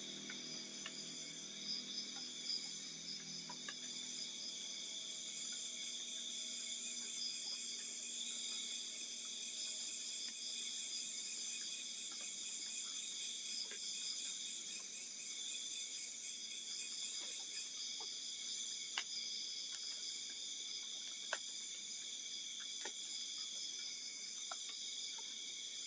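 Steady, high-pitched chirring of night insects such as crickets, with scattered faint clicks, two of them a little louder in the second half.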